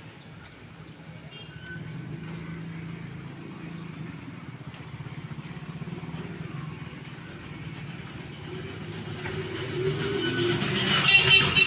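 Street traffic: a motor vehicle's engine running steadily, growing louder near the end as a vehicle passes close by.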